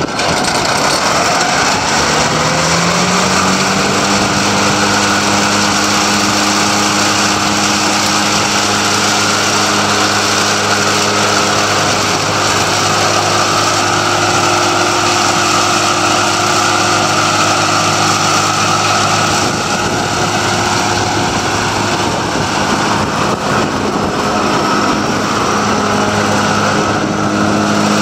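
Tractor engine and the PTO-driven New Holland 1442 Discbine disc mower-conditioner running in a steady mechanical drone. The pitch rises about two to three seconds in as it comes up to speed, then holds.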